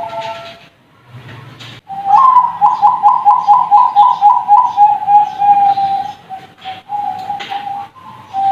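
Young Bangkok-strain zebra dove (perkutut) cooing: a rapid run of about a dozen short pulsed notes starting about two seconds in, running into a held trailing coo, then a few shorter coos.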